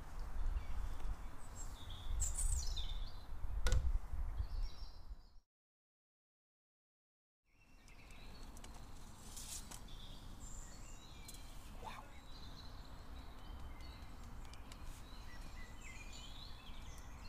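Outdoor woodland ambience with small birds chirping now and then. A low rumble runs through the first five seconds, with a sharp click near four seconds in. The sound then cuts out completely for about two seconds, and the birds and a quieter, steady hiss come back.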